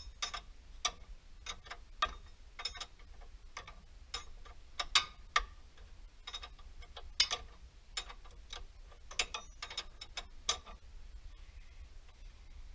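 Sharp metal clicks and clinks from hand tools at work, irregular at about one to two a second, stopping a couple of seconds before the end.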